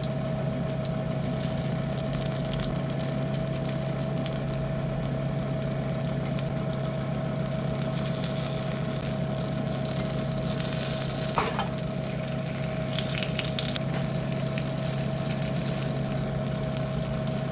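Paniyaram batter frying in hot oil in a pan, a steady sizzle full of fine crackles, over a steady low hum. A single brief tap about eleven seconds in.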